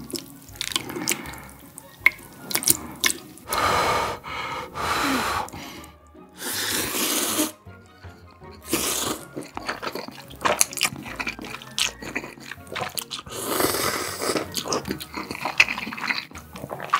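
A person slurping instant ramen noodles: several loud, wet slurps of about a second each, with chewing and short clicks between them.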